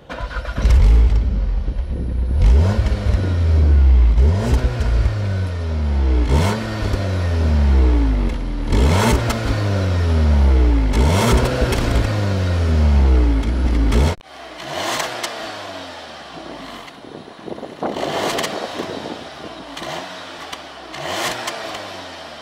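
Audi S3's 2.0-litre TFSI turbo four-cylinder, heard at its quad exhaust tips, being revved hard from idle several times, each rev rising and falling back. About 14 seconds in the revving stops abruptly and the sound drops much lower. The owner finds the note thin, like a regular A3, blaming the WLTP detuning and a not-yet-run-in engine.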